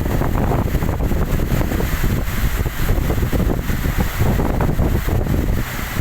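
Heavy rain pouring steadily, with a dense low rumble of wind buffeting the microphone.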